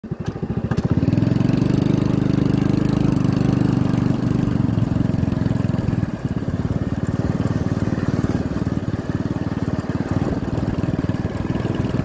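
Small engine of a moving vehicle running steadily up close, with a rapid, even firing beat.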